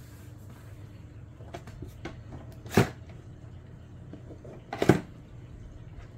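Two short knocks about two seconds apart, over a steady low hum.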